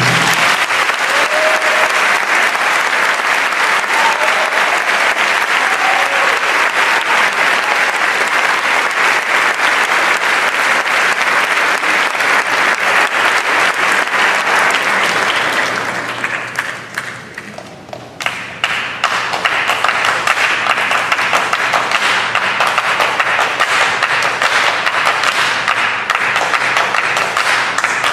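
Audience applauding; the applause dies down a little past halfway, then swells again.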